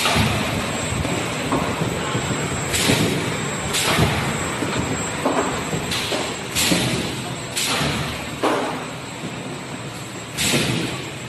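Automatic rice-ball forming machine and its conveyor running: a steady mechanical noise with sharp knocks at irregular spacing, about one a second.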